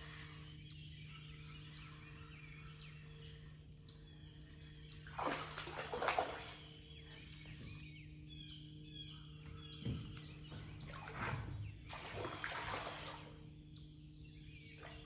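Water splashing in two bursts, about five seconds in and again near eleven seconds, with birds chirping and a steady low hum underneath.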